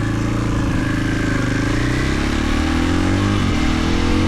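Husqvarna FE 450's single-cylinder four-stroke engine pulling under acceleration, its revs climbing steadily. It breaks off briefly about three and a half seconds in, at a gear change, then climbs again.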